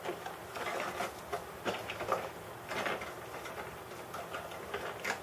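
Irregular clicks, taps and rustles of hard plastic and paper being handled while a GoPro Hero 4 Black's plastic housing and packaging inserts are unpacked.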